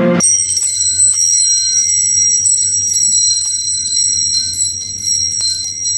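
Metal tube wind chimes ringing, cutting in suddenly. Several high, overlapping tones hang on, with a few light strikes of tube against tube.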